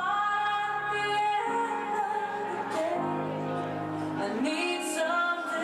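Music with a woman singing: long held sung notes that shift in pitch every second or so over instrumental backing.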